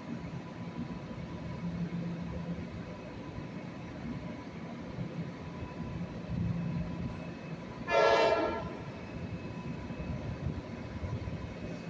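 Approaching Metro-North express train sounds one short horn blast about eight seconds in, over a steady low rumble of the train coming down the line.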